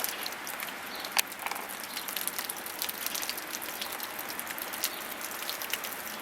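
Wet snow and rain falling on surfaces: a steady hiss full of small ticks from drops and flakes landing, with one sharper tick about a second in.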